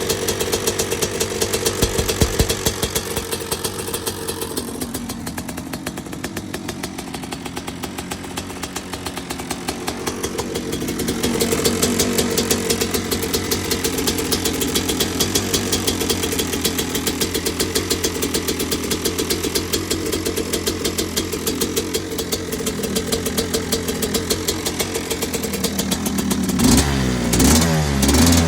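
Small engine running steadily with a loud crankcase noise, rapid even firing pulses. Its speed swells a little about a third of the way in, and near the end it turns louder and uneven.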